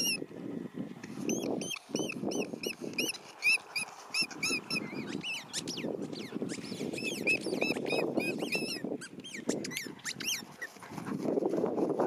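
Husky chewing a squeaky ball, squeezing out rapid runs of short, high squeaks, several a second, that stop shortly before the end. A low rustling runs underneath.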